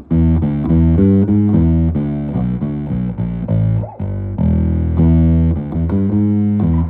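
Electric bass played through a Bag End D12-D four-12 speaker cabinet: a run of plucked notes, one bent upward about halfway through. The cabinet has a buzz that the owner takes for one or both blown drivers.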